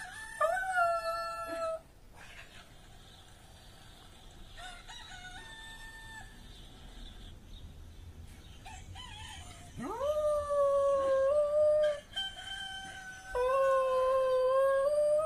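A rooster crowing and a dog howling back at it. Near the end come two long howls, the first sliding up into a held note.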